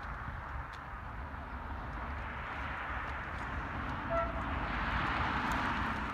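Outdoor vehicle and traffic noise, a steady rushing rumble that swells toward the end, with one brief horn toot about four seconds in.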